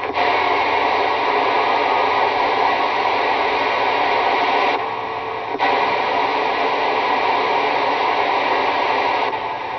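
Steady hiss of CB radio static between test transmissions. It drops slightly for under a second about five seconds in, and again near the end.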